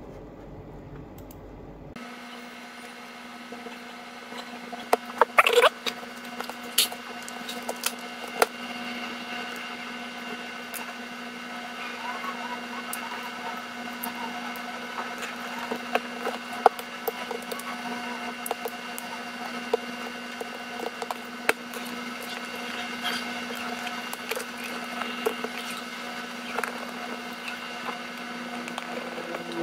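Scattered clicks and taps of a smartphone's plastic and metal parts being handled and pressed together while it is reassembled, the sharpest cluster about five to six seconds in. A steady hum runs under them from about two seconds in.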